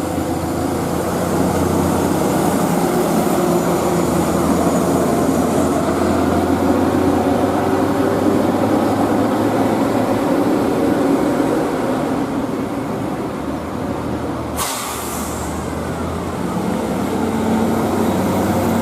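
Heavy bus engine running with steady road and traffic noise and a low hum underneath; a sharp click about fifteen seconds in.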